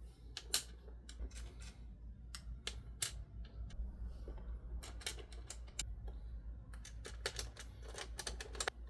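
Irregular light clicks and taps of small metal hardware (screws, washers and an Allen key) being handled and fitted on a monitor mounting plate, over a low steady hum.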